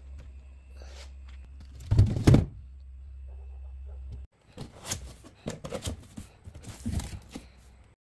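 Plastic refrigerator crisper drawer being slid and knocked shut, two loud thuds about two seconds in, over a low steady hum. After the hum cuts off, a scattered run of light clicks, knocks and rustling from handling.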